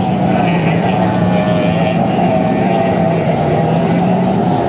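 Formula One tunnel-boat racing outboard engines running hard at speed, a steady high engine note whose pitch wavers slightly; a lower engine tone fades out near the end.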